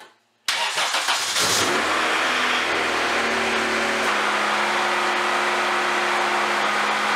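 Honda Civic EJ1's four-cylinder engine started about half a second in: it catches within about a second, revs up, then settles into a steady fast idle that drops a little lower about four seconds in. This is the first start after the battery was relocated to the trunk and rewired, and it starts without trouble.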